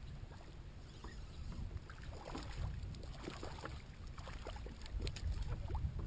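Water lapping and splashing against a kayak's hull, in small irregular splashes, over a low rumble of wind on the microphone.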